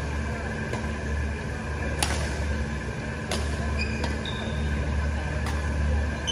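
Badminton rackets hitting a shuttlecock during a doubles rally: sharp smacks one to two seconds apart, with short squeaks of court shoes on the floor near the end. A steady low hum runs underneath.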